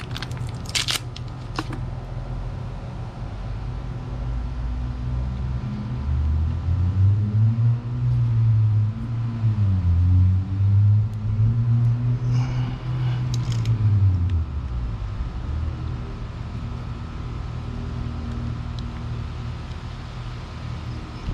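A motor vehicle engine runs as a steady low hum; in the middle it gets louder, its pitch rising and falling for several seconds. A few sharp clicks and scrapes come near the start and again just past halfway.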